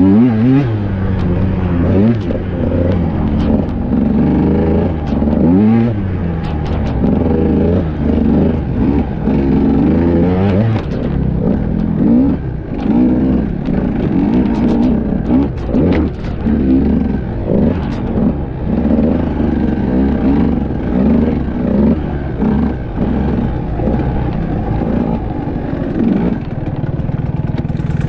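KTM EXC enduro motorcycle engine, heard from the bike being ridden, revving up and down again and again with the throttle along a trail. There are a few sharp knocks and clatter from the bike around the middle.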